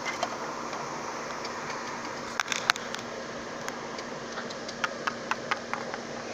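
Steady drone of a string trimmer (weed eater) running, with sharp clicks and taps of plastic toy figures being handled on a table, the loudest pair about two and a half seconds in.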